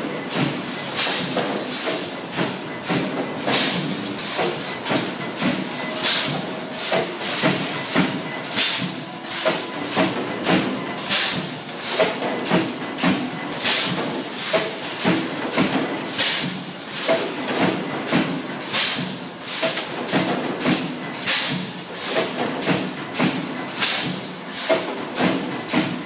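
Factory machinery for welding wire mesh cable tray working in a steady cycle: a running series of clanks and hissing air releases, about one or two a second, over a constant machine din.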